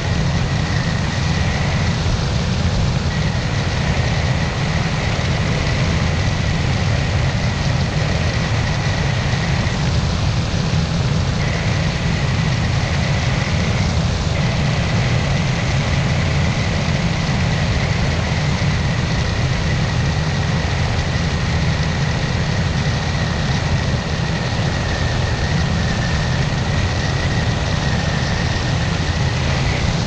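Flex-wing microlight trike in flight: its engine and pusher propeller drone steadily under a rush of air. A thin high whine rides on top and drops out briefly a few times.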